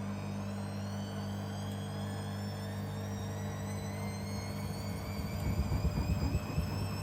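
Beko washing machine, run without its counterweights, with its motor whine rising steadily in pitch as the drum speeds up over a steady low hum. Near the end a rapid rhythmic rumble swells for about a second.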